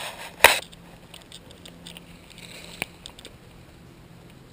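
A single sharp knock about half a second in, followed by a much fainter click near the three-second mark, over low rustling.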